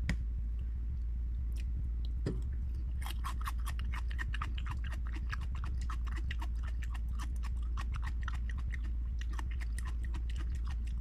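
Close-up crunchy chewing of raw onion, with quick crisp crunches starting about three seconds in and going on steadily, over a steady low hum.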